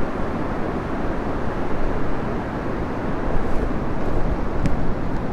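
Yamaha Serow 250's carbureted single-cylinder four-stroke engine running steadily as the bike rides along, with a short click near the end.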